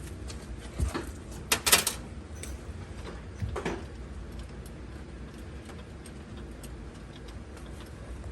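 A few sharp clicks and knocks from handling battery terminal clamps and connectors, the loudest a quick cluster about two seconds in, over a low steady hum.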